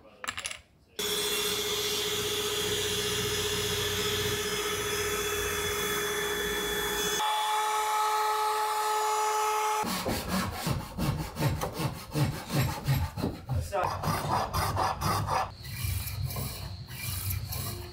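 Compact Makita router running steadily as it cuts a wooden door-frame board; its tone changes about seven seconds in. It then stops, and for the rest of the clip a hand tool works the wood in quick rhythmic strokes, a few a second.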